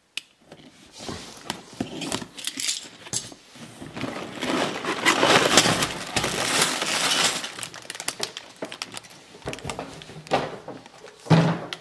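A box cutter slitting the tape on a cardboard LEGO box, then plastic bags packed with LEGO pieces sliding out and being handled: the bags crinkle and the pieces clink and rattle inside them, loudest in the middle.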